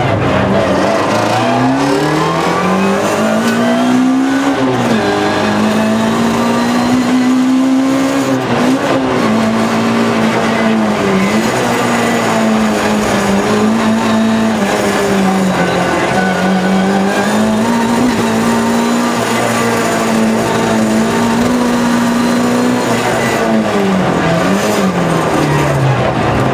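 Race car engine heard from inside the cabin, driven hard through a stage. The revs climb over the first few seconds, dip briefly twice as it changes up, hold high and wavering through the middle, then drop and climb again near the end.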